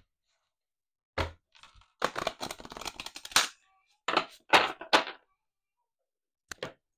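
A deck of oracle cards shuffled by hand: a knock of the deck on the wooden table about a second in, then two spells of rapid, papery card shuffling, and a couple of light taps near the end.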